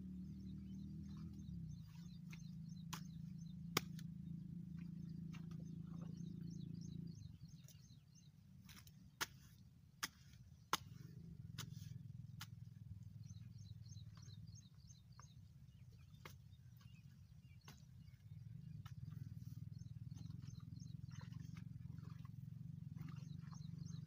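Birds chirping in short repeated calls over a low steady hum, broken by a few sharp clicks or knocks.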